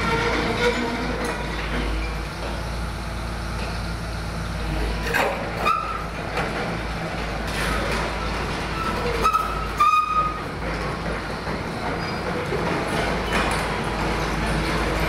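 Hyundai 220LC-9S crawler excavator's diesel engine running steadily, with a few clanks and short metallic squeals about a third and two thirds of the way through.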